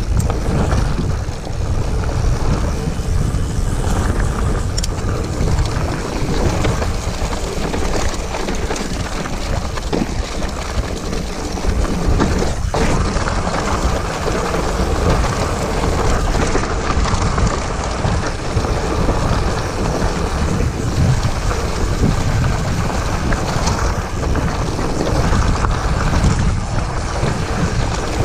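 Wind rushing over the microphone as a Scott hardtail mountain bike rolls down a rocky dirt trail, with tyres crunching over gravel and the bike rattling over bumps. One sharp knock about halfway through.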